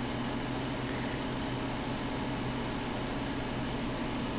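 Steady low electrical hum with an even hiss underneath, unchanging throughout: background noise from a running appliance.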